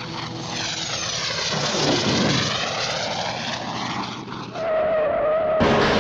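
Cartoon sound effects from the Warner Bros. library: a loud engine-like rushing noise whose pitch sweeps down and then back up, then a short wavering whistle-like tone, then an abrupt cut to another loud rushing effect near the end.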